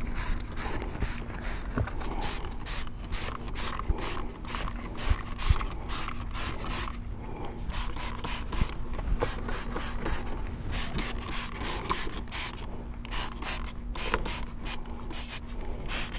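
Trigger spray bottle of wheel cleaner squirting onto a car wheel: rapid, repeated hissing squirts, about two or three a second, with a couple of short pauses.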